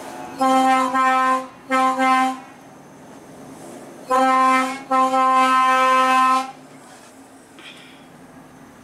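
Truck air horn sounded in four loud blasts on one steady note, the last the longest, over the steady hum of the truck cab.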